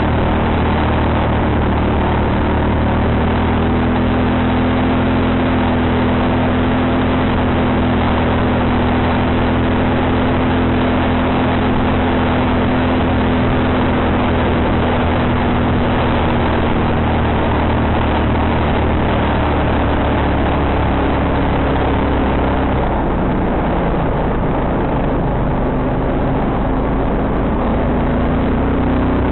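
Quad bike engine running steadily under load while being ridden, its note shifting a little in pitch. About three-quarters of the way through, the deep low rumble falls away and the engine note changes.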